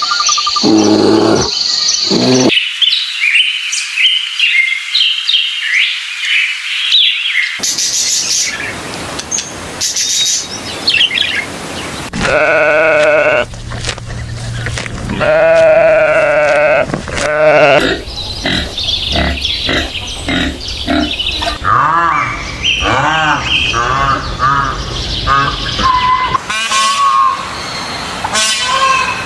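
Several different animal calls in succession: high chirping a few seconds in, then two long wavering bleats of goats or sheep in the middle, followed by assorted short chirps and calls.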